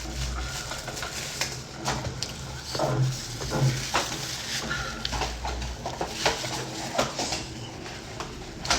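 Close-up eating sounds: chewing and food handling, with many small irregular clicks and rustles over a low hum and a louder click near the end.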